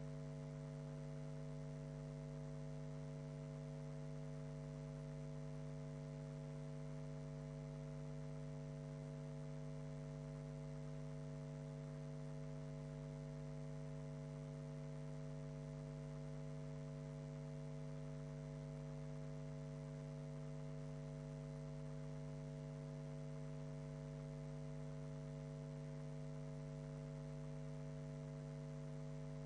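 Steady electrical mains hum: a constant low buzz with several fixed overtones over a faint hiss.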